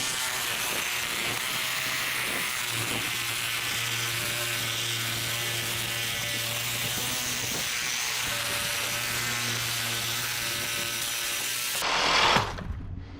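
Reciprocating saw (Sawzall) running steadily as its blade cuts through the copper tubing of an old radiator. The saw surges briefly and then stops about twelve seconds in.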